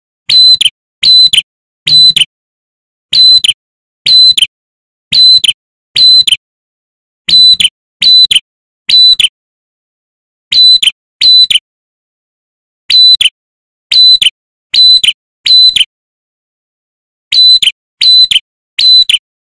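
Male ashy tailorbird calling: a loud, clear whistled note, each one held briefly and then dropping in pitch, repeated about twice a second in bursts of two to five notes with short pauses between bursts.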